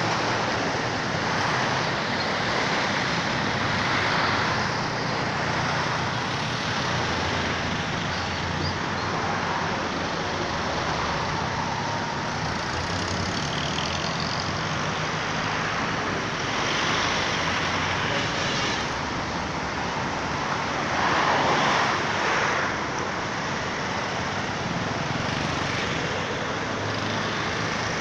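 Steady road traffic noise, swelling louder for a moment about three-quarters of the way through.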